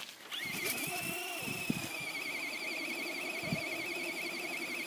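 Arrma Senton RC truck's electric motor whining high and steady with a fast waver, straining against a brick-loaded longboard. It spools up just after the start, with a few low knocks underneath.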